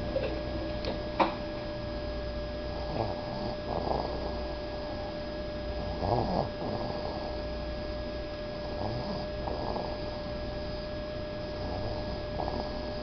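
Soft snoring of a sleeper, a slow breath roughly every three seconds, over a steady electrical hum. A sharp click comes about a second in.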